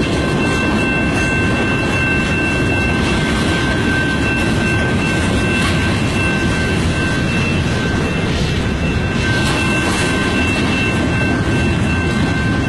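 Canadian National mixed freight train's cars rolling steadily past at medium speed, a dense rumble of wheels on rail. A thin, steady high-pitched squeal runs over it.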